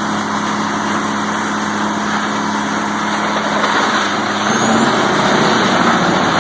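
Heavy wood-processing machine running under load: a steady engine drone beneath loud, continuous grinding and shredding noise, swelling a little in the second half.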